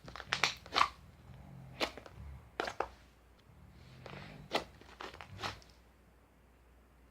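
Scattered crisp crunches: a quick cluster in the first second, then single ones every second or so, stopping a little before the end.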